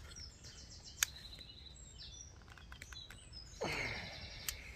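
Small birds chirping and singing, with a sharp click about a second in and a short, louder scrape at about three and a half seconds from the warped metal pan holder of a wood-burning camp stove being bent back into shape by hand.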